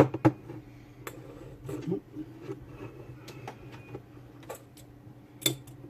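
Scattered small clicks and taps of hand tools against the window switch's circuit board while a tiny LED is fitted, over a low steady hum.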